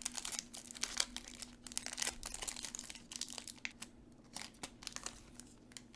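Foil Pokémon booster pack wrapper being torn open and crinkled: a dense run of crackles for the first few seconds, thinning to scattered rustles.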